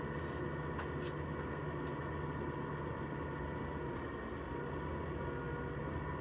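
Recycling truck's diesel engine running steadily as a low hum, with a few faint ticks in the first two seconds.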